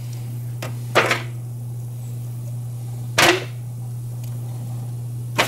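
Bacon-wrapped frog legs dropped one by one into an aluminum foil pan: three short, sharp knocks about two seconds apart, over a steady low hum.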